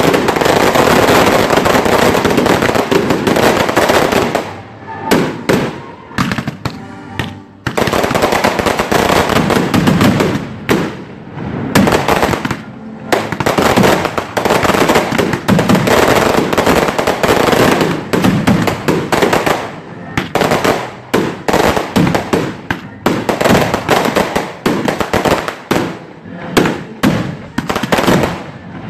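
A fireworks barrage going off, with rapid, near-continuous sharp bangs. The bangs thin out briefly about five seconds in, then pick up again and become more spaced out near the end.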